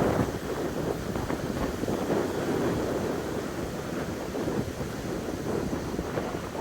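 Wind buffeting the microphone in uneven gusts, with sea surf washing behind it.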